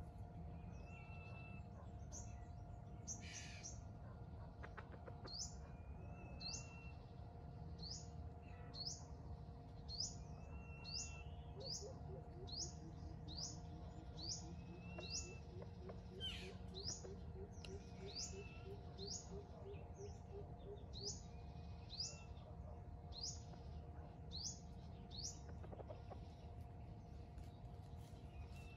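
A small wild bird repeating short, high, falling chirps about once a second, faint, with an occasional softer lower call between them.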